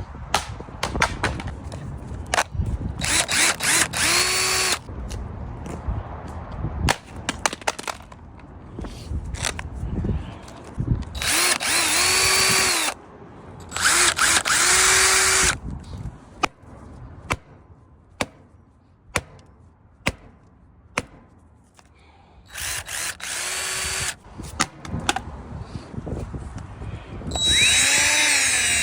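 Porter-Cable cordless impact driver triggered in five short runs of a second or two each. Each run has a motor whine that rises as it spins up, over the rattle of the impact mechanism. Between runs there are scattered sharp knocks and clatter as the driver is knocked about in a durability test, and it keeps running.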